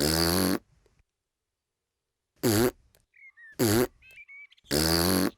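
Cartoon piglet hiccuping four times, each a short buzzy vocal burst, the first and last a little longer; his hiccups have not been cured.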